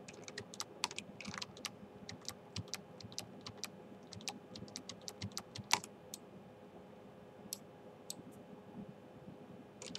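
Computer keyboard and mouse clicking as the keys and buttons are tapped in quick irregular strokes. The strokes come close together for the first six seconds or so, then thin out, with one louder click about six seconds in.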